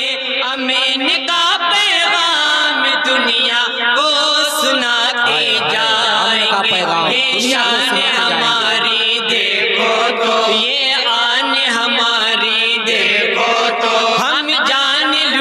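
Group of men chanting a naat together into a microphone, holding long drawn-out notes that waver and slide in pitch without a break.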